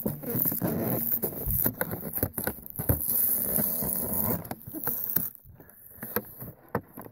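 Hands handling and scraping an action figure's cardboard box and clear plastic window, a busy run of crinkles, taps and clicks that thins out to scattered clicks for the last few seconds.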